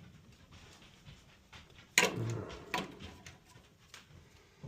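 Metal tool clicks and knocks against furnace sheet metal as a screw is worked with a 1/4-inch driver: one sharp clack about two seconds in, then a few lighter knocks and ticks.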